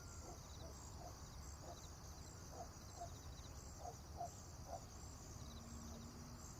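Quiet farmyard ambience: a chicken clucking in a string of short calls over the first five seconds, against a steady high-pitched chirring and a low rumble.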